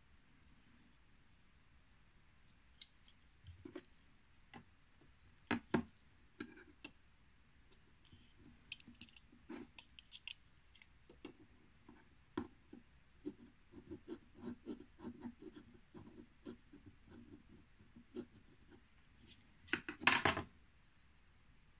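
Scattered small metal clicks and short scrapes as a digital caliper is handled and its jaw tips scribe marking lines on a square brass bar, with a quick run of light ticks in the middle. A louder clatter near the end as the caliper is set down on the bench.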